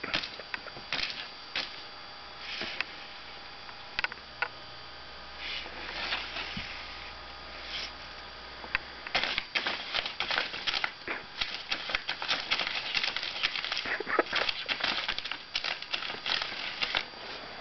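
A cat batting and clawing at a paper wall poster: quick irregular taps and scratchy paper rustling, sparse at first and busy through the second half.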